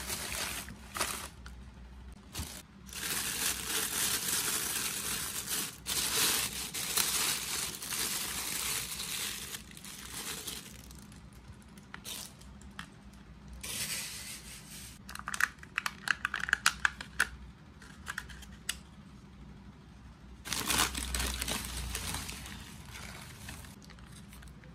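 Plastic take-away packaging handled and opened: a clear plastic clamshell box, a plastic cup lid and a plastic bag rustling and crinkling. There is a quick run of sharp crackling clicks about two thirds of the way in.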